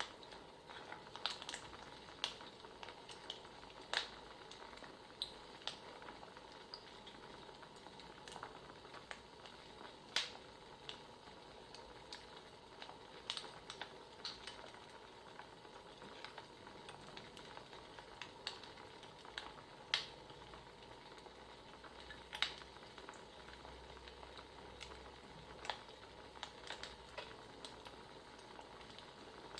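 Wood fire crackling: a steady soft hiss with irregular sharp pops and snaps, a handful of them louder than the rest.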